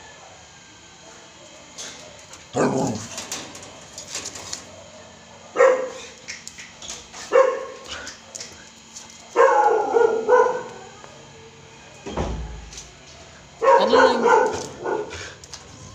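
Excited husky barking in about five separate calls, the last two drawn out to about a second each. A dull thump comes a little past the middle.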